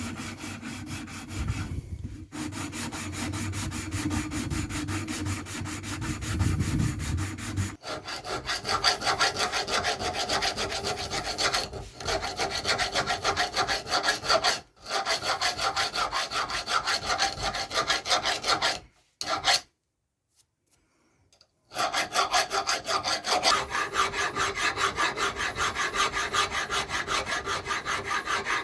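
Abrasive rubbing on metal vise parts, in fast, even back-and-forth strokes, heard as several short clips with a brief silent break about twenty seconds in.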